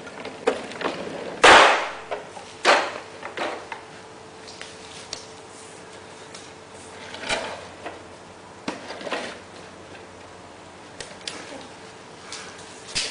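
Scattered knocks and bumps from a plastic toy dump truck as a baby handles it and pushes against it on a tile floor, the loudest about one and a half seconds in. A steady low hum runs underneath.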